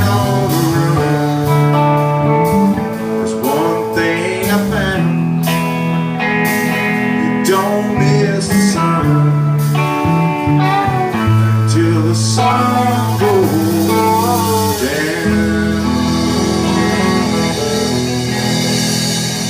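Live blues-rock band playing loud, with an electric lead guitar bending notes over bass and drums.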